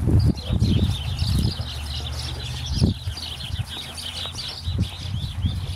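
Small birds chirping busily, many short falling chirps a second. Under them come low thumps and rustling, loudest right at the start and about three seconds in.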